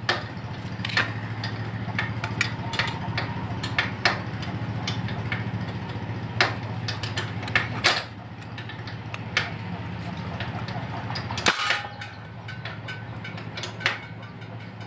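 Sharp metallic clicks and clanks, scattered irregularly, from hand tools and a motorcycle exhaust muffler being fitted. A steady low hum sits underneath and cuts off about three-quarters of the way through.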